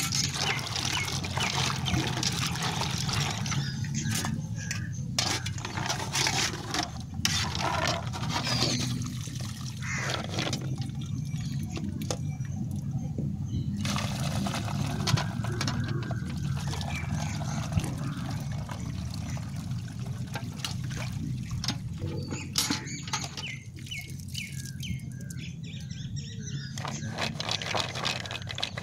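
Peanuts in their shells being washed by hand in a metal pot of water, with water sloshing and pouring and the shells rattling against the metal as they are tipped into a colander.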